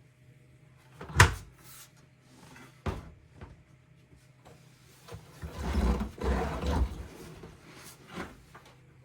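Front-loading washing machine door being opened: a sharp click about a second in, another knock near three seconds, then a few seconds of rustling and dull thumps of handling at the drum.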